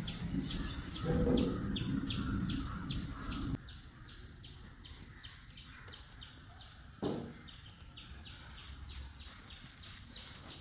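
A bird chirping over and over in a steady rhythm, about three short high chirps a second. Low background rumble fills the first few seconds and cuts off abruptly about three and a half seconds in. A single knock comes about seven seconds in.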